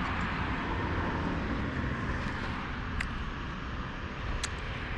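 Steady outdoor background noise with two short clicks, one about three seconds in and one near the end.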